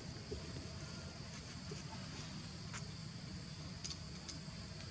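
Steady, high-pitched drone of insects, cricket- or cicada-like, over a low rumble, with a few faint clicks.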